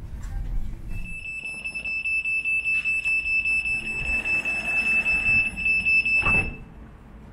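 Door-closing warning on a Class 399 tram-train: a loud, high, rapidly pulsing beep, about three pulses a second, that stops with a thump a little after six seconds in as the doors shut.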